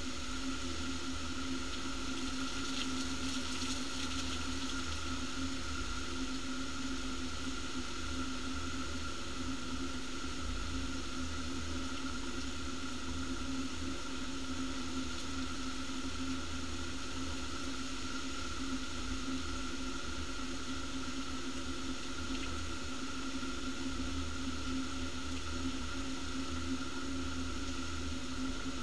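Heavy rain pouring down steadily in a violent storm, with a steady hum underneath.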